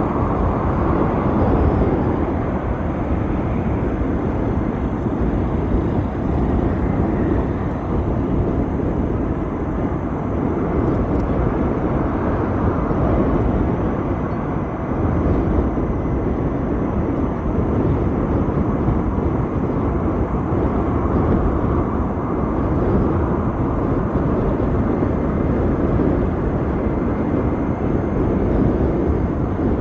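Steady wind and road rumble while riding an Ather 450X electric scooter, with no engine note.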